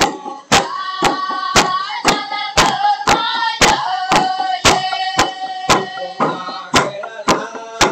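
Sewang music: bamboo stamping tubes struck on a wooden log in an even beat of about two knocks a second, with voices singing a chant over them.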